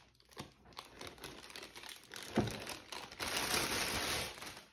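Clear plastic packaging bags crinkling and rustling as they are pulled off and away from a liquid-cooler radiator. There is a knock about two and a half seconds in, then a louder stretch of crinkling.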